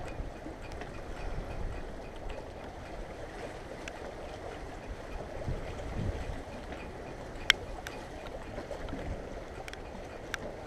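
Steady, low outdoor background noise with a few scattered small clicks. One sharp click, the loudest sound, comes about two-thirds of the way through.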